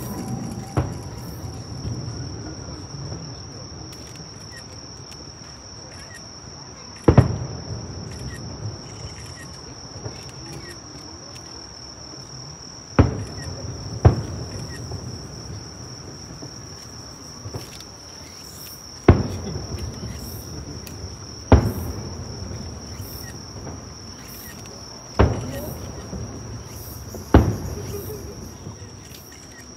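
Aerial firework shells bursting in sharp booms every few seconds, about eight in all, over a steady high-pitched drone of night insects.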